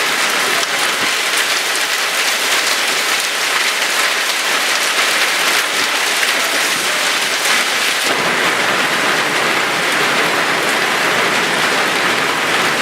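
Hailstorm with heavy rain: a dense, loud, steady clatter of countless hailstone and raindrop impacts. About eight seconds in the sound gets fuller and lower.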